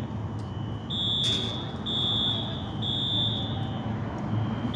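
Fire alarm sounding continuously: a high electronic tone in groups of three long blasts with a short pause between groups, over low background rumble.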